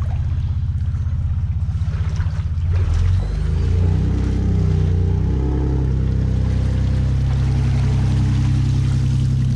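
Jet ski engine running, its pitch shifting several times in the first half, then holding steady, with some water splashing.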